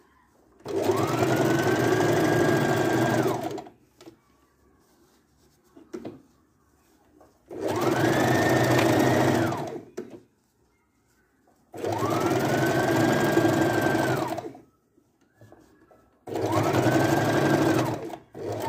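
Domestic electric sewing machine stitching a straight seam, run in four short bursts of two to three seconds each: the motor whine rises in pitch as it speeds up and drops as it stops, with quiet pauses between.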